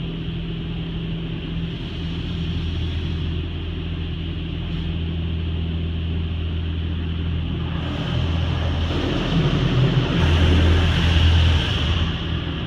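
Touchless car wash heard from inside the car: a steady low hum of machinery, then from about eight seconds in high-pressure water jets strike the car, a rushing spray that grows louder and drops away near the end.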